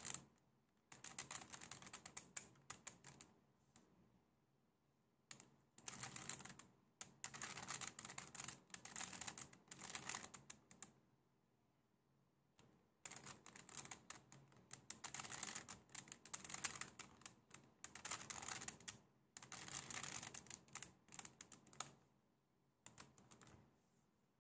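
A 3x3 Rubik's cube's layers being turned by hand, faint rapid clicking clacks in bursts of a few seconds with short pauses between them.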